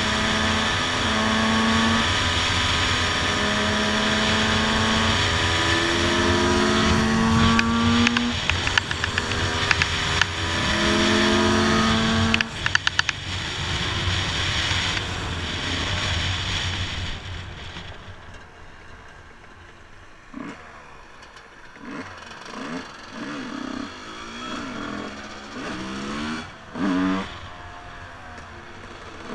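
Two-stroke motocross bike being ridden, its engine pulling up in pitch again and again as it accelerates through the gears. About two-thirds in it slows and drops much quieter, with a few short throttle blips.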